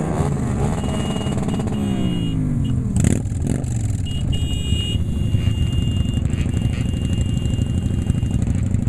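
Motorcycle engines running on the move, the pitch rising and falling over the first three seconds as the bike accelerates and shifts, then settling into a steady drone. There is a sharp knock about three seconds in.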